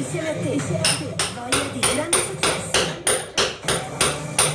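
Hammer and chisel chipping plaster off a stone wall: repeated sharp blows, about three a second from about a second in.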